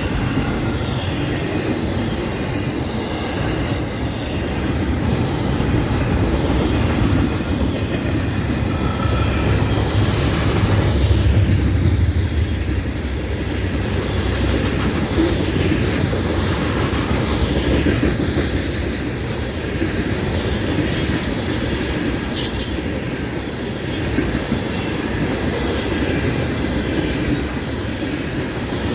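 Florida East Coast Railway freight train rolling past, its steel wheels clattering steadily over the rail joints. Short high-pitched wheel squeals come through near the start and again in the last third.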